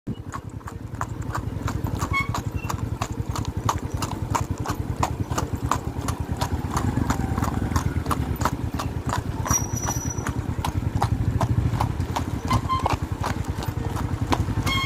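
A ridden horse's hooves clip-clopping in a steady, even rhythm, a few strikes a second, over a low rumble.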